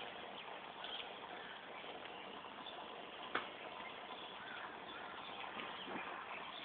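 Quiet outdoor ambience: a steady low hiss, with a single sharp click a little over three seconds in.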